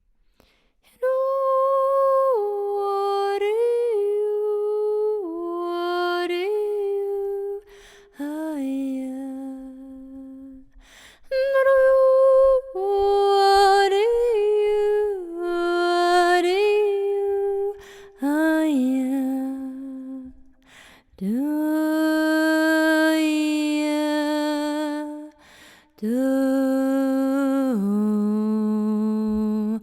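A woman's solo voice singing wordless, long-held notes in slow phrases, with short pauses between them and the pitch stepping down within each phrase; an improvised vocal sound-healing chant.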